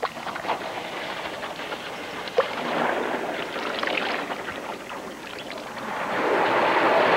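A crowd of African elephant bulls jostling and drinking at a waterhole: a rushing, splashing sound of water and moving bodies that swells twice, with a few short knocks.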